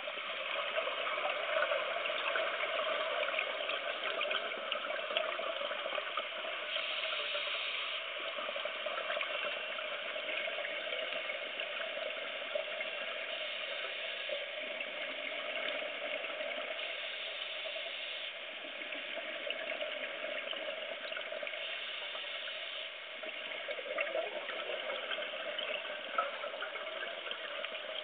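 Underwater sound of scuba diving: the steady bubbling and hiss of a diver's regulator, with a brighter surge every four to five seconds.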